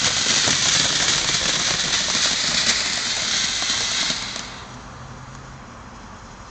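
Ground fountain firework spraying sparks: a loud steady hiss with scattered crackles, which dies away about four seconds in as the fountain burns out.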